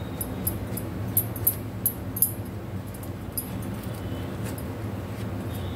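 Metal spoon spreading mayonnaise over a slice of toasted bread: a run of short, irregular crisp scrapes, over a steady low hum.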